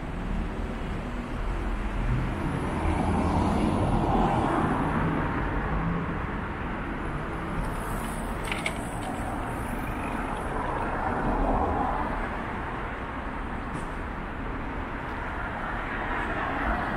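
City street traffic: cars passing through an intersection, the noise swelling and fading as each goes by. A brief high squeak comes about eight seconds in.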